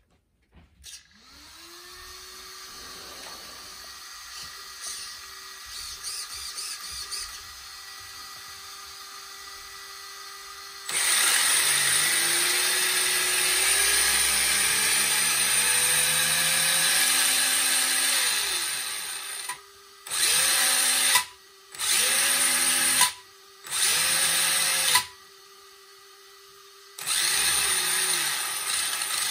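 3300 kV brushless motor of a 3S-powered RC car, spinning its drivetrain and wheels in the air with an electric whine. For the first ten seconds or so it runs at low throttle. It then jumps to a much louder run, its pitch rising for several seconds. Near the end comes a series of short throttle blips, about a second each.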